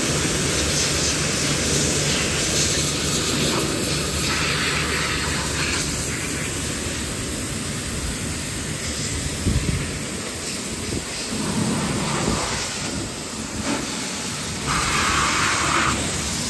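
High-pressure water spray from a pressure-washer wand hissing against a car, over a steady low hum. The spray grows louder for a couple of seconds about four seconds in and again near the end.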